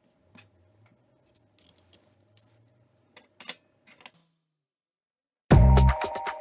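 Light clicks and taps of stainless steel cutlery with tubular metal handles being handled on a table. Loud music with deep bass notes starts near the end.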